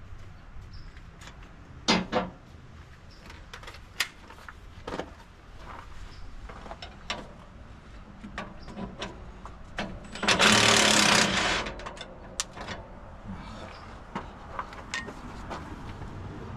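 Hand work in a diesel engine bay: scattered sharp clicks and knocks, a loud double knock about two seconds in, and a loud rushing noise lasting about a second and a half a little past the middle.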